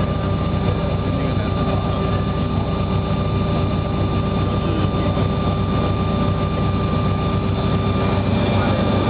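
DOIE CTcP platesetter running while it exposes a plate: a steady machine hum with a constant high whine over a low rumble.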